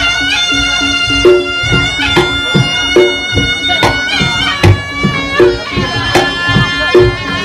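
Reog Ponorogo gamelan music: a slompret, the shawm-like double-reed pipe, plays a held, wavering melody that slides between notes. Drum and gong strikes keep a steady beat beneath it.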